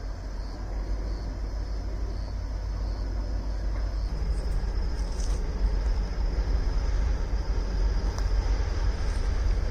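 Distant EMD SD40 diesel locomotive and its train approaching: a low rumble growing steadily louder, with a few faint high-pitched sounds past the middle.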